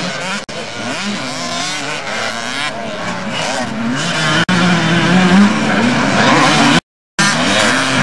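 Several motocross bikes' engines revving hard on a dirt track, their pitch rising and falling as the riders accelerate and shift. The sound cuts out completely for a moment about seven seconds in.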